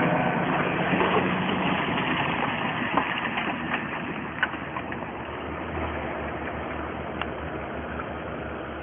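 Tractor engine running as it pulls a trailer loaded with hay bales through mud, growing fainter as it moves away, with a few short clicks.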